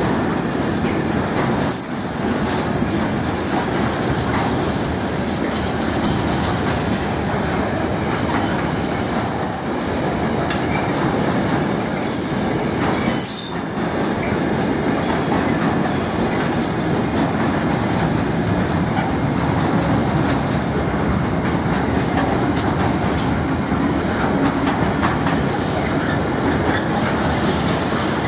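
Container freight train's wagons rolling past steadily: continuous rumble of wheels on the rails, with short high-pitched wheel squeals again and again.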